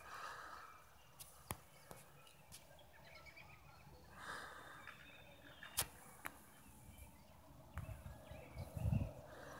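Faint outdoor background with scattered sharp clicks, a couple of brief faint calls near the start and about four seconds in, and a low rumble about nine seconds in.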